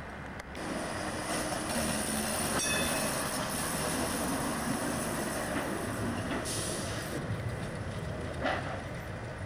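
Electric rail service car running past close on tram track: a steady rumble of wheels and running gear on the rails, with a brief high wheel squeal about three seconds in and a short knock near the end.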